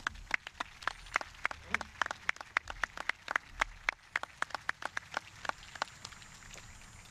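Scattered applause from a small seated audience, the individual hand claps clearly separate. The applause dies away about six seconds in.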